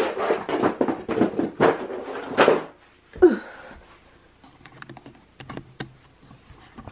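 Clicks, taps and knocks of hands handling things close to the microphone: a dense run for about two and a half seconds, then a few sparse light ticks.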